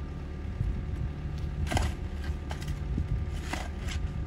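A shovel blade chopping and scraping into stony soil, about five sharp strikes. Under them runs the steady low idle of an excavator's diesel engine.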